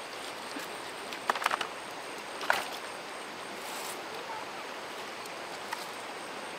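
Steady rush of flowing water. A quick cluster of brief sharp sounds comes about a second and a half in, and another single one a second later.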